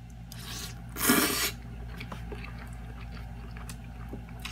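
A mouthful of spaghetti slurped in from the fork: a faint slurp just under a second in, then a louder one about a second in, followed by quiet chewing with faint clicks.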